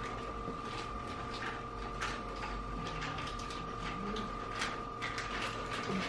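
Tensile testing machine's drive running steadily with a constant whine while its crosshead slowly pulls a crimped cable held in pneumatic grips, with light irregular clicks scattered through. The grips are at low clamping pressure (about 1.5 bar), so the cable is slipping rather than breaking.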